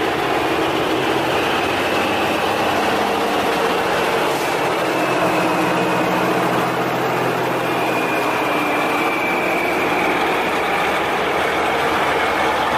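Classic diesel semi-truck tractors rolling slowly past one after another, their engines running at low speed with a steady low drone and a thin high whine that sinks slightly in pitch.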